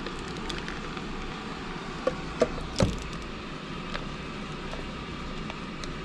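Plastic bag crinkling as a slab of raw meat is squeezed out of it into a stainless steel Instant Pot inner pot, with three short knocks about two to three seconds in as the meat lands against the steel, over steady room noise.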